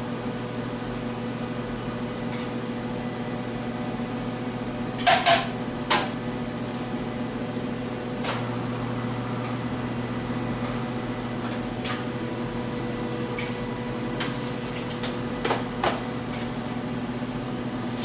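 Steady machine hum in a small room, with a few sharp clacks and knocks of a scoop and metal bin as feldspar powder is weighed out on a scale. The loudest clacks come about five and six seconds in, with a lighter cluster near the end.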